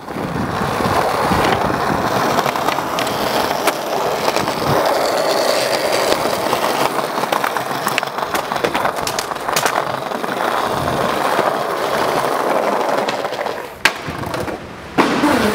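Skateboard wheels rolling over rough pavement and tiles, with several sharp wooden clacks of the board being popped and landing.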